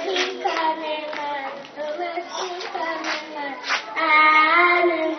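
A child singing into a microphone with long, held, wavering notes, in words the speech recogniser does not catch. A few sharp strikes, like claps, fall in the first four seconds.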